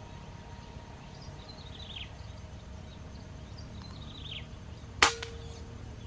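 A single sharp air-rifle shot about five seconds in, followed by a brief ringing tone. Before it, a small bird repeats a short falling chirp about every two seconds.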